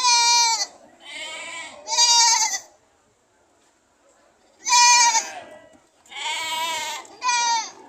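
Goats bleating: six loud, wavering calls, three in quick succession, then a pause of about two seconds, then three more.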